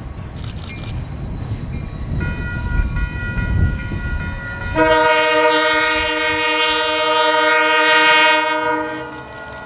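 Diesel locomotive of Union Pacific 1158 rumbling along the track, then about five seconds in its air horn sounds one long, loud chord lasting about four seconds.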